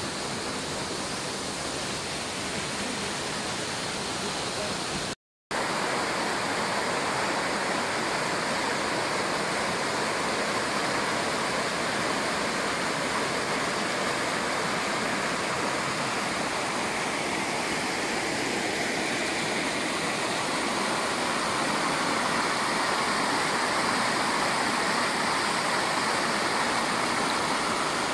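Small waterfall pouring over rocks into a pool: a steady rush of splashing water. The sound drops out briefly about five seconds in, then returns a little louder.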